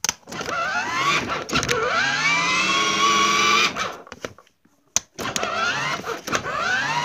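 A small electric motor whining as it spins up with a rising pitch and then runs steadily; it stops about four seconds in, and after a click it spins up again near the end.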